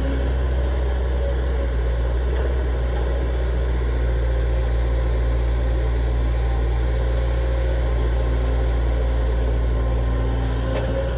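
Heavy diesel engine of construction equipment running steadily with a deep, even hum.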